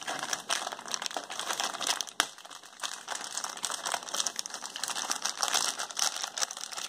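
Clear plastic bag crinkling and rustling irregularly as hands handle it to pull the CellSpot router out, with a single sharp click about two seconds in.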